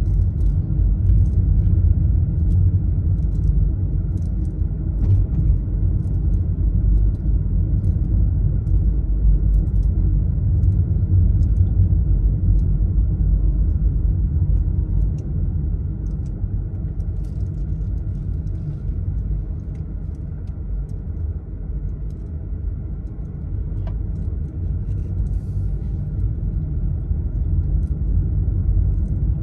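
Steady low rumble of a car being driven slowly on a street: engine and tyre noise.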